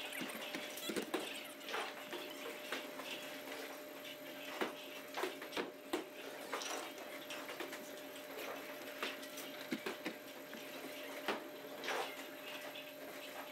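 Faint bowling-alley background: scattered light clicks and knocks over a steady low hum.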